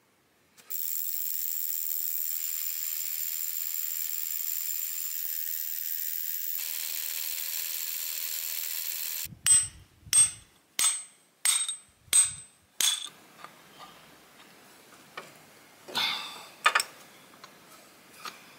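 Power drill boring into a rock face for about eight and a half seconds, then stopping. Next come six sharp, ringing hammer blows on metal, about one and a half a second, as an anchor bolt is driven into the drilled hole, followed by lighter clicks and taps.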